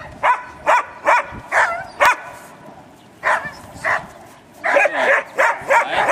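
A dog yapping: short, high-pitched barks about two or three a second, with some calls bending in pitch like a whine. The barking pauses for about a second a couple of seconds in, then comes back faster near the end.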